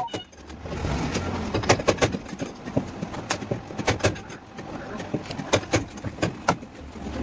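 Irregular sharp taps and knocks, several a second, from bodywork tools working car body sheet metal, over a low steady hum.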